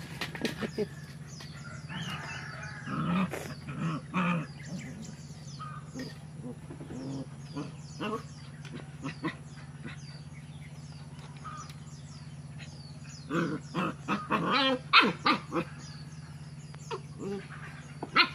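Two puppies play-fighting, giving short barks and yaps in two clusters, a couple of seconds in and again about two-thirds of the way through, over a steady low hum.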